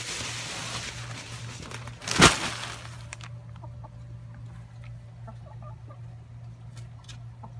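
Backyard chickens clucking, with a rushing noise over the first two seconds and one loud sharp knock just over two seconds in; a steady low hum runs underneath.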